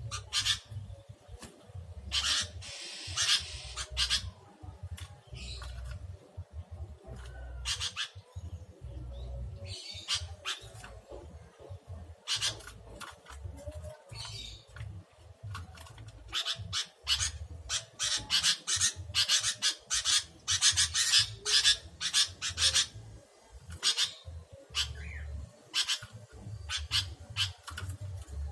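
Sooty-headed bulbuls (creamino kutilang) calling in many short, harsh, chattering bursts, repeated irregularly over a low rumble.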